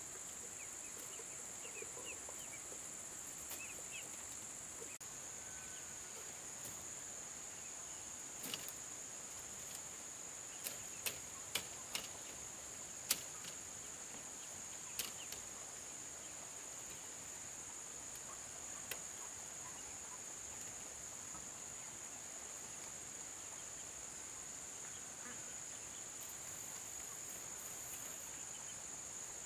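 Steady high-pitched drone of forest insects, with a scattered run of sharp knocks through the middle, one louder than the others.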